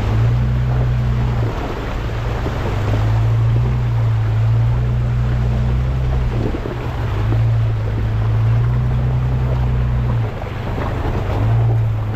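Vehicle on the move: a steady low engine drone with wind and road noise, swelling and easing several times and dipping about ten seconds in.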